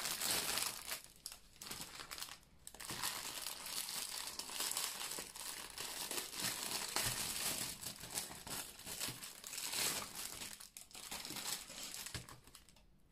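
Clear plastic packaging crinkling as bags of diamond painting drills are handled and pulled from their cellophane wrapper. The crinkling is continuous, with a few short pauses.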